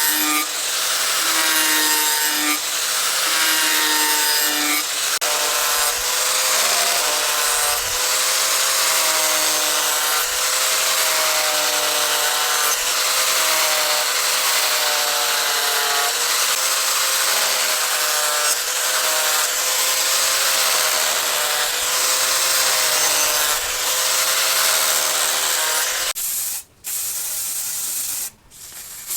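Electric sander running with abrasive rubbing steadily against a workpiece, its motor whine wavering up and down in pitch. The sound drops out briefly twice near the end.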